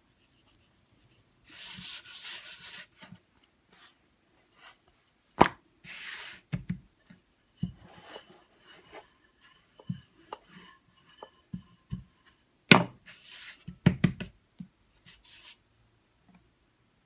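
Ridged wooden rolling pin rolling and rubbing over dough on a stone worktop, with scattered sharp knocks as the pin is handled against the counter; the loudest knocks come about five and thirteen seconds in.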